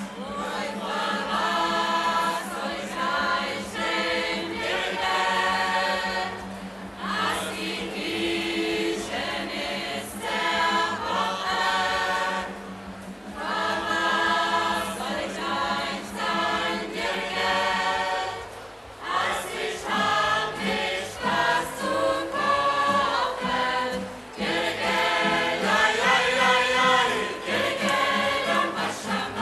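Scout choir of mixed voices, children and adults, singing a song to strummed nylon-string acoustic guitars, in phrases of about six seconds with short breaks between.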